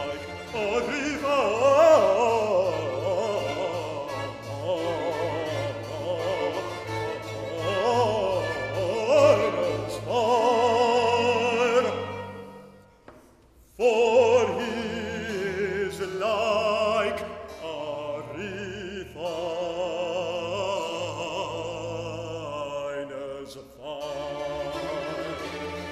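Baritone soloist singing with a wide vibrato over a small baroque ensemble of violins, cello and harpsichord. About halfway through the music stops for a pause of about a second, then voice and strings come back in.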